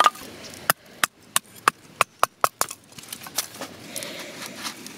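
Hard firewood being split by hand: a quick run of sharp cracks and knocks as pieces and splinters break away, in the first two and a half seconds. Then a knife blade scraping along a stick, shaving off thin curls for a feather stick.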